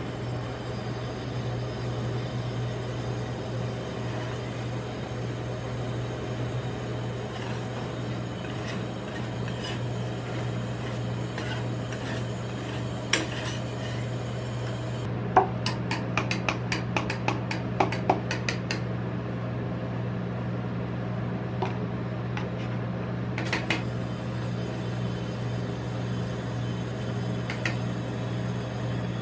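Metal spatulas scraping and tapping on the frozen stainless-steel plate of a rolled-ice-cream machine, with a cluster of sharp clinks about halfway through and a few single taps later. Under it, a steady low hum from the machine's refrigeration unit.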